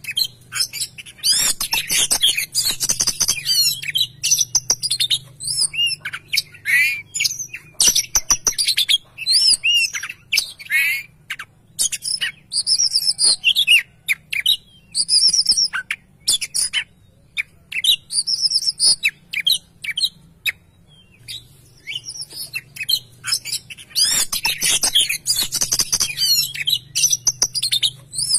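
Oriental magpie-robin singing a long, varied song of clear whistled phrases with rising and falling notes, mixed with sharp clicks and harsh notes, broken by a few short pauses.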